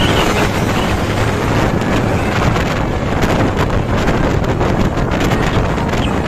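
Wind buffeting the microphone over a steady roar of road traffic.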